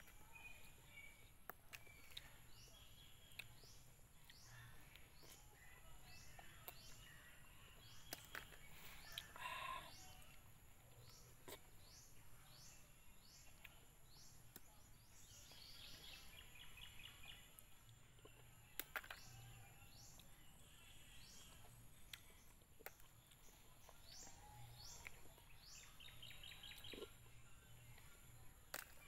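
Faint outdoor ambience with birds chirping repeatedly and a few soft clicks.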